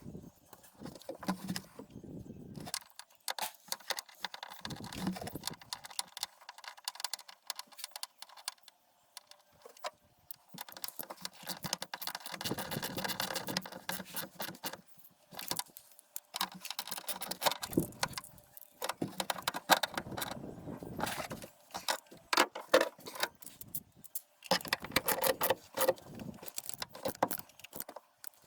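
Metal tools and bolts clinking and rattling, with many scattered knocks and clicks, as the gear shifter assembly is fitted back onto the top of the gearbox and bolted down.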